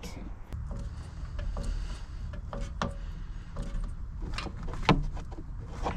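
Rubbing and scraping with a few sharp knocks and clicks as a new rubber lower radiator hose is worked onto its fitting in the engine bay. The loudest knock comes about five seconds in.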